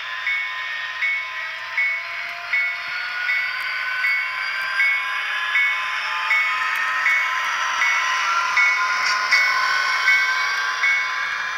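HO-scale model SD60's ESU LokSound decoder playing diesel locomotive sounds as the train pulls away: a bell ringing about once every three-quarters of a second over the running engine, with a whine that rises slowly in pitch.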